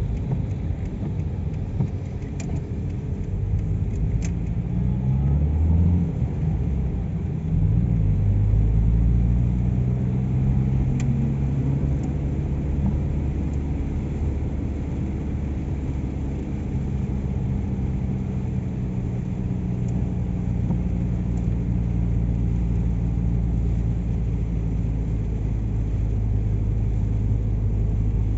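A car's engine and road noise while driving: a low rumble with the engine note rising twice in the first ten seconds as the car speeds up, then holding steady at cruise.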